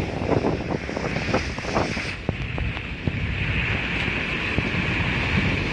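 Wind buffeting the microphone at the window of a moving vehicle, over a steady low road rumble and the hiss of tyres on a wet road. A few light sharp taps come in the first couple of seconds.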